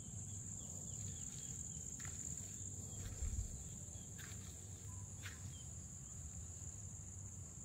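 Steady high-pitched drone of insects chirring in the orchard, over a low rumble, with a brief low thump about three seconds in.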